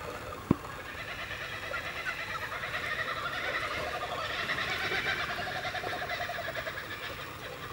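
An animal call: a rapid, rhythmic run of notes that swells and then fades over several seconds. A single sharp click comes about half a second in.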